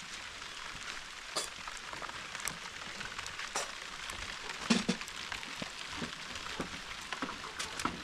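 Steady heavy rain falling, with scattered louder drops or taps close by, the loudest a little past halfway.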